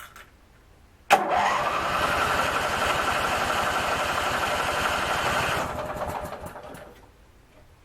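Craftsman 19.5 twin riding mower's electric starter cranking the engine, which does not catch. It starts suddenly about a second in, rises in pitch, holds steady for about four seconds and then winds down. The engine is out of gas.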